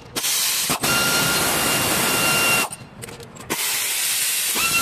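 Pneumatic air ratchet running on a bolt in two bursts: a loud hiss of exhausting air over a steady high whine from the air motor. The second burst starts about three and a half seconds in.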